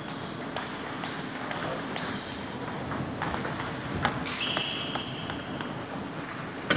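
Table tennis rally: a celluloid ball clicking off the paddles and the table at an irregular pace, with the sharpest hits about four seconds in and near the end. A short high squeak comes just past the middle.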